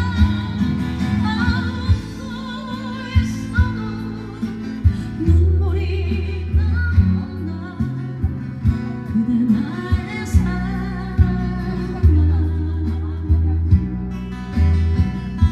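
A live singer sings a Korean ballad with vibrato over guitar accompaniment, with steady low bass notes underneath.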